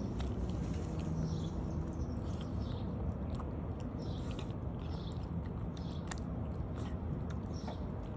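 A cat chewing and eating food close to the microphone: an irregular run of small clicks and crunches.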